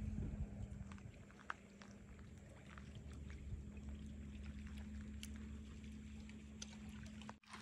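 Quiet outdoor ambience: a steady low hum under a light rumble of wind on the microphone, with scattered faint clicks. The sound cuts out briefly near the end.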